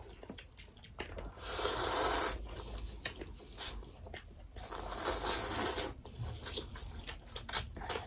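Spaghetti noodles slurped up twice, each slurp about a second long, with short wet clicks of chewing in between.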